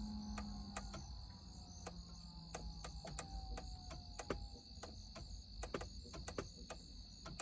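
Faint, irregular sharp clicks, two or three a second, over a steady high-pitched tone.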